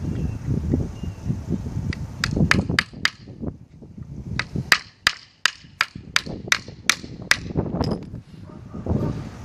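Hammer striking a nail into wood in two runs of quick, sharp, ringing blows. First come about five blows, then after a short pause about eleven more at roughly four a second.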